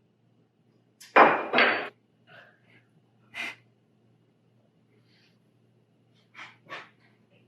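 A man downing tequila shots: two loud sudden sounds about a second in, then several softer short ones, with a pair near the end.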